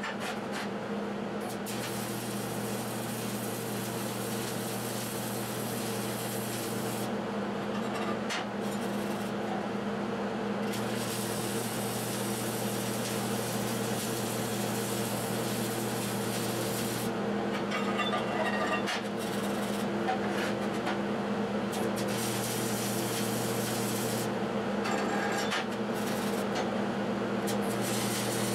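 Shielded-metal-arc (stick) welding with 7018 electrodes: the arc crackles in long runs, starting about two seconds in and breaking off for a few seconds several times between beads. A steady low hum sits under it.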